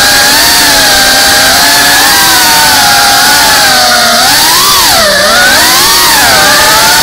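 FPV quadcopter's electric motors and propellers whining, heard close up through the onboard camera, the pitch steady at first and then dipping and rising several times in the second half as the throttle changes.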